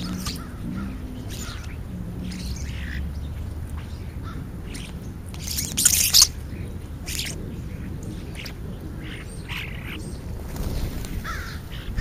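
European starlings at a food pile giving short, scattered chirps and clicks. A loud flurry comes about halfway through as one starling flaps its wings and takes off.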